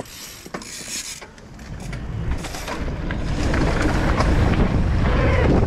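Mountain bike setting off down a dirt trail: a few clicks and rattles at first, then rumbling wind noise on the microphone and tyre noise that grow steadily louder as the bike picks up speed.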